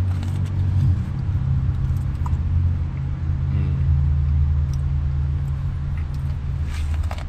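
Steady low hum of an idling car, heard from inside the cabin, with a few faint clicks near the end.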